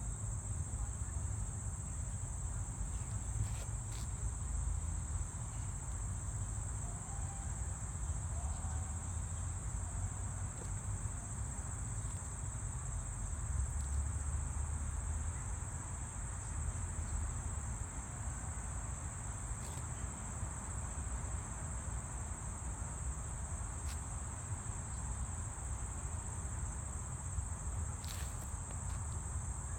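Steady, unbroken high-pitched chorus of insects, with a low rumble underneath and a few faint ticks.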